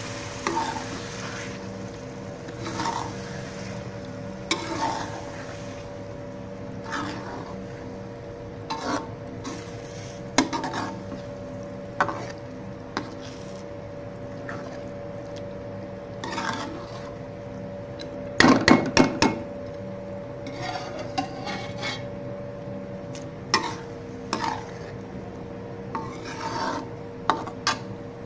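Steel ladle stirring and scraping lentils through oily masala in a steel pot, in irregular strokes every second or two. A quick run of louder knocks comes about two-thirds of the way through, over a steady low hum.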